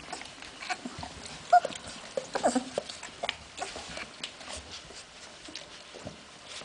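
Hungarian vizsla puppies whimpering and squeaking while nursing, with small clicks from suckling. A few short squeaks come about one and a half to two and a half seconds in, then it grows quieter.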